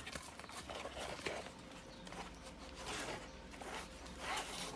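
Cardboard box and plastic packaging rustling and scraping in the hands as a squashed box is opened and its contents handled, in irregular short bursts.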